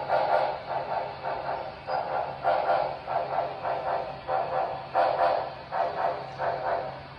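Model steam locomotive's onboard sound unit chuffing slowly, about two chuffs a second, as the engine creeps forward, over a steady low hum.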